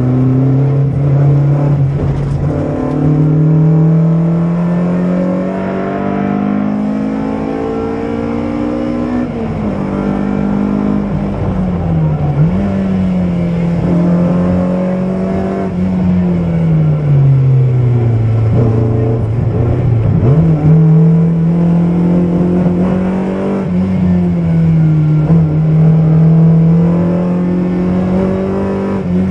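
BMW M3 rally car's engine heard from inside the cabin at speed, its note climbing through the revs, dropping sharply at the gear changes and pulling up again.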